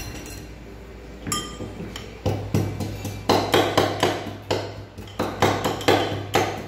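Spice being pounded with a pestle in a metal mortar: a single strike, then a run of sharp, ringing metal-on-metal blows at about three a second.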